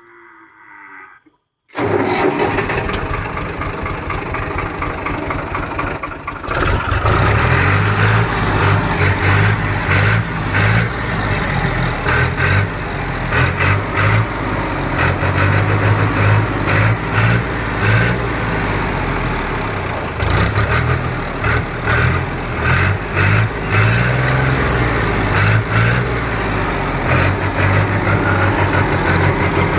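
An engine starting suddenly about two seconds in, then running loudly. From about six seconds in it gets louder, with a pulsing low note and repeated rises and falls in level, like throttle blips.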